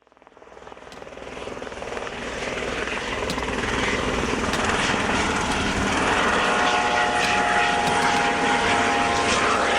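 Eurocopter EC130B4 single-engine turbine helicopter running, its noise growing louder over the first few seconds and then holding steady, with a steady whine joining about six seconds in.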